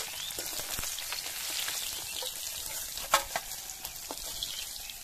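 Fish pieces frying in hot mustard oil in a karai, a steady sizzle with crackles, as they are lifted out with a metal spatula. A single sharp knock about three seconds in.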